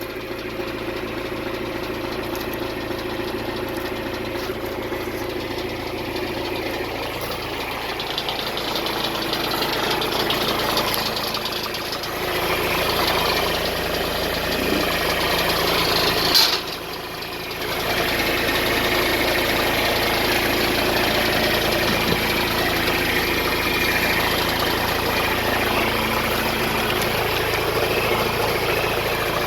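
John Deere 410D backhoe's diesel engine idling steadily, with a shift in level about twelve seconds in and a brief dip near the middle, while the repaired hydraulic lines are checked for leaks.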